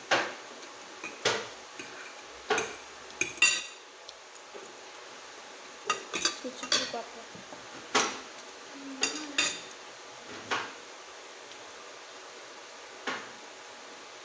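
Cutlery clinking and tapping against a plate or bowl while eating noodles: about a dozen irregular sharp clinks, a few ringing briefly.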